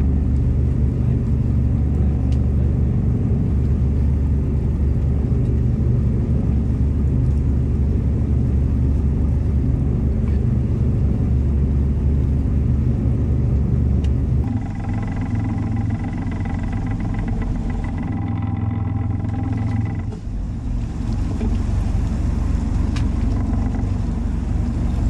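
A fishing boat's engine running, a steady low rumble. About 14 seconds in it changes character, with a steady whine over it for several seconds, and it shifts again about 20 seconds in.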